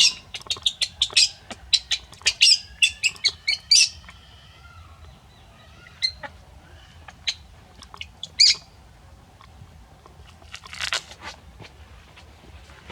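A rapid run of short, sharp, high-pitched chirps or squeaks from an animal over the first four seconds, then a few single chirps and another short flurry near the end.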